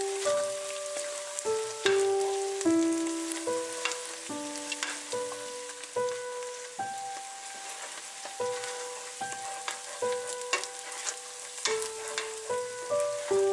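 Onions sizzling as they fry in butter in a stainless steel pot, stirred with a spoon. Over it runs background music: a slow melody of single clear notes, a new one every half second to a second.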